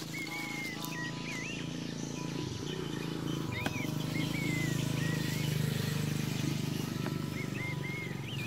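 A low, steady engine drone that swells in the middle and eases off again, with small birds chirping short whistled notes several times over it.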